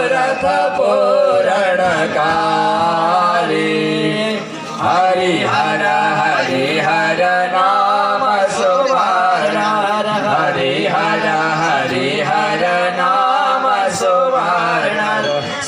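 Devotional chanting by a group of voices, with long held notes and sliding melodic lines over a steady low drone.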